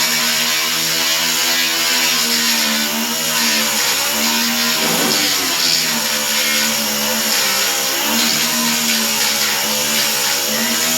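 Electric grinder running under load, grinding a filled weld down flush on a steel sheet-metal patch, with a steady motor whine over a harsh hiss of abrasive on metal. The pitch wavers as the grinder is pressed on and eases briefly about five seconds in.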